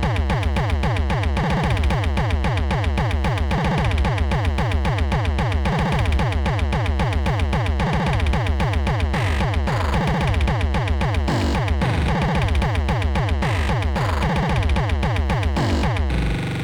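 Electronic synthesizer music from an Amiga intro's soundtrack: rapid, repeated falling pitch sweeps over a steady, pulsing bass beat. The music switches to a new section just before the end.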